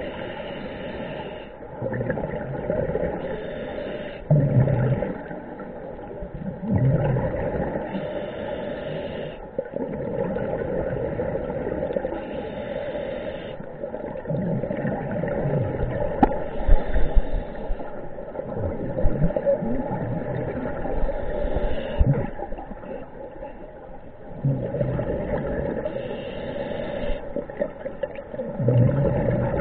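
Scuba diver breathing underwater through a regulator: breaths and rushes of exhaled bubbles, repeating about every three to four seconds.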